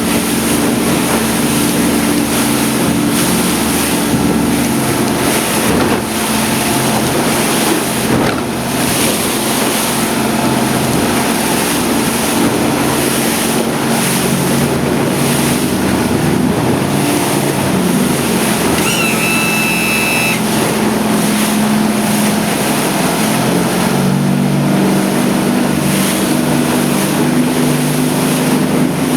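Yamaha F350 5.3-litre V8 four-stroke outboard running steadily at planing speed, with wind and water rushing past. A brief high-pitched tone sounds about two-thirds of the way through.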